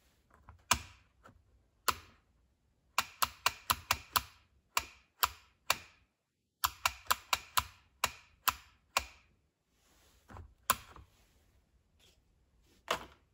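Rocker switch flicked on and off over and over, each flick clicking together with the 5-pin automotive relay it triggers as the relay pulls in and drops out. The clicks come singly, then in two quick runs of about six in a second.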